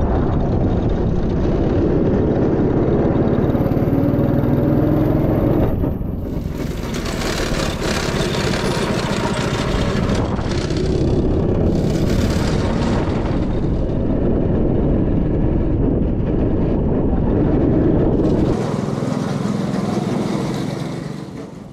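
Go-kart engines running on a track, a dense steady engine noise that shifts in character a couple of times and fades out near the end.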